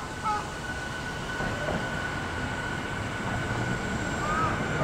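Approaching Tobu 50000 series electric train: a steady high-pitched hum over a rumble that grows gradually louder. A crow caws once at the start, and a similar call comes near the end.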